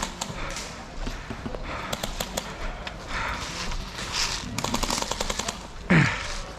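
Airsoft electric guns firing short full-auto bursts, each a rapid rattle of shots, one burst about two seconds in and a longer one near five seconds. Near the end, a brief loud sound drops sharply in pitch.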